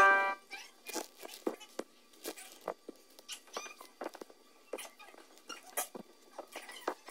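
Sped-up pointe shoes tapping and scuffing on the studio floor: quick irregular clicks and squeaks, several a second.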